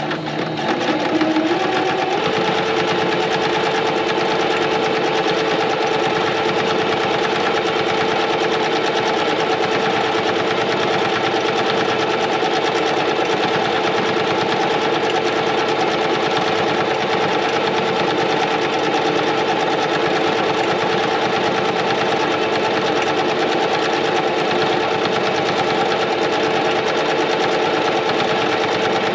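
Singer electric sewing machine stitching a decorative border pattern through scrapbook cardstock. It picks up speed over the first two seconds, then runs steadily at an even speed.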